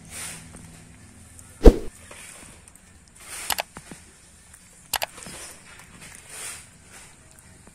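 A single sharp knock about one and a half seconds in, followed later by two fainter clicks, over soft intermittent rustling.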